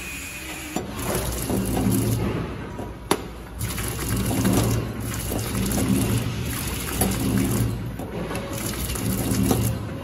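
Door hinge flow-wrap packing machine running: a steady motor hum that rises and falls every second or two as it cycles, with a couple of sharp clicks.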